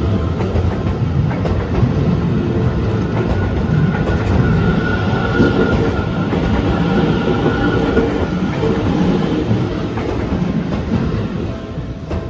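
Seibu Ikebukuro Line electric train passing close by, its wheels clattering over the rail joints. The sound starts to fade near the end as the train moves off.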